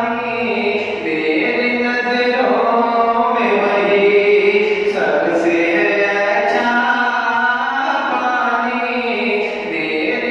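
A man's solo voice singing a naat, a devotional Urdu poem in praise of the Prophet, unaccompanied, in long held, bending notes.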